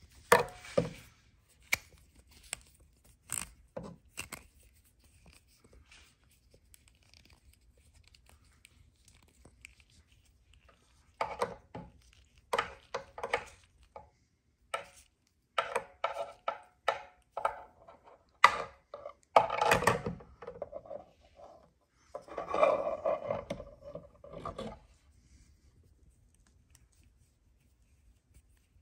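Handling noise: scattered clicks and knocks, then a stretch of irregular scraping, rubbing and rustling that stops a few seconds before the end.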